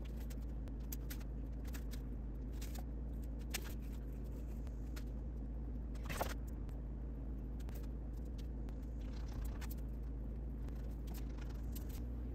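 Scattered light taps and scrapes of a hand tool working soft chinking into a log joint, over a steady low hum.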